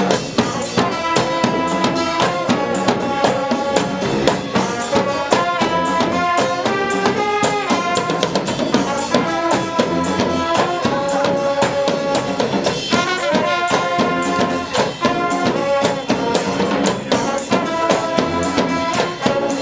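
Street brass band playing: horns carry a melody over busy, steady drumming and percussion.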